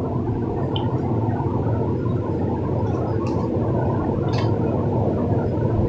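Steady low hum and rumble, with a few faint light clicks, about three in all.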